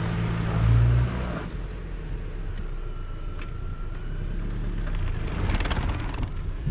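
Opel Astra G's 1.6-litre 16-valve four-cylinder petrol engine revving hard as the front wheels spin in loose sand with the car dug in. The revs drop back about a second and a half in, and the engine runs on lower.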